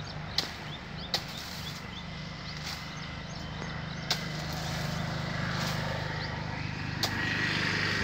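Sharp, separate chops of a hand blade cutting into the frond bases of a wild date palm, a few seconds apart, clearing the crown for toddy tapping. A steady low hum runs underneath.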